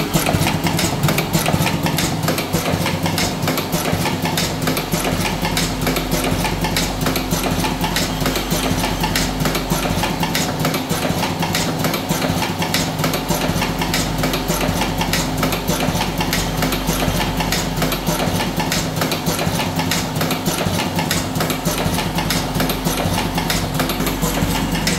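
Buffalo V4S electric cigarette filling machine running steadily: a constant motor hum overlaid with rapid, continuous mechanical clicking from the tobacco-filling mechanism.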